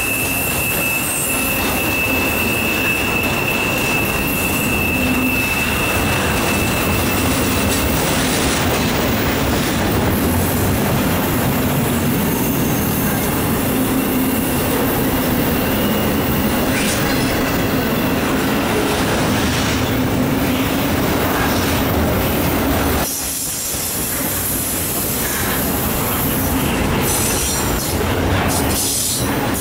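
Intermodal freight cars (double-stack container cars and trailers on flatcars) rolling past, steel wheels on rail making a steady, dense rumble. A thin, high wheel squeal holds for the first six seconds or so. The rumble drops briefly about 23 seconds in.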